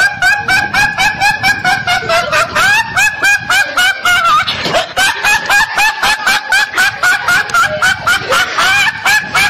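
Comic honking, laugh-like sound effect: a rapid honk-like call repeated about four times a second, with a short break about four and a half seconds in.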